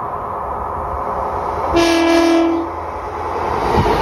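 Diesel multiple unit passenger train sounding its horn once, a single steady blast just under a second long, as it approaches a foot crossing. Then the rumble of the train rises as it draws level, with a knock near the end as it starts to pass.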